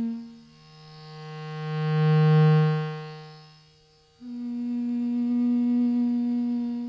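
Sustained microphone-and-loudspeaker feedback drones, pure and steady in pitch: a low tone swells up and fades away over about three seconds, then a higher tone cuts in abruptly about four seconds in and holds.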